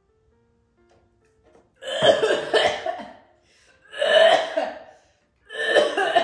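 A woman coughing hard three times, each cough about a second long and evenly spaced.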